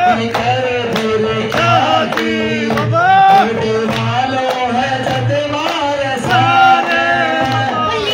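Shyam bhajan (Hindi devotional song) sung through a microphone and sound system, the melody carried over a steady low drum beat with sharp percussive strokes.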